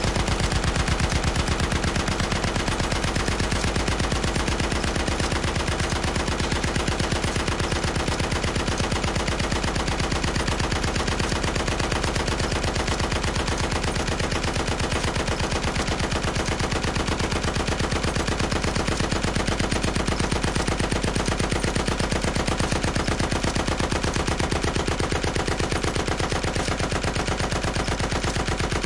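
Heavy machine gun firing one continuous sustained burst, a rapid, even stream of shots that never pauses, as a looped sound effect.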